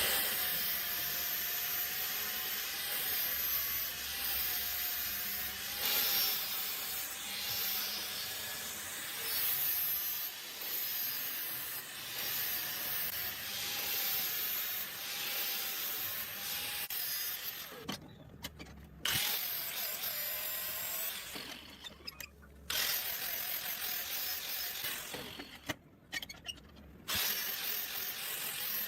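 A power grinder shaping a glued-up wooden knife handle to its rough profile, running under load with a wavering motor tone. It cuts out briefly a few times in the last third.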